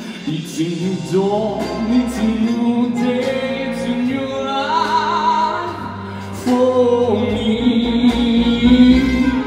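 Live pop song: a singer with band accompaniment, holding a wavering note about halfway through, with the bass growing heavier near the end.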